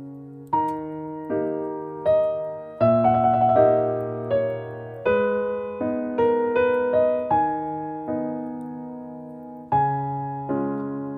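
Background music: a slow solo piano melody, each note struck and left to fade.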